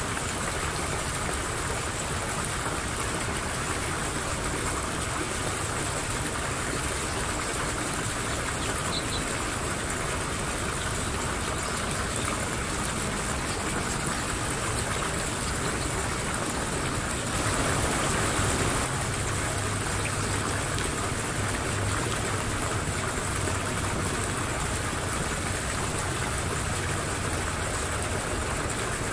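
Steady rushing background noise outdoors, with no distinct events, swelling briefly a little past halfway.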